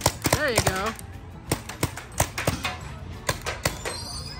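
Music with a voice whose pitch bends up and down in the first second, mixed with sharp, irregular clicking hits.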